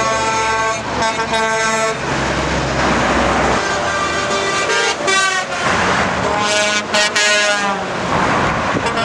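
Semi-truck air horns blasting several times: two short blasts at the start, then more blasts about five and seven seconds in, over the noise of passing truck traffic.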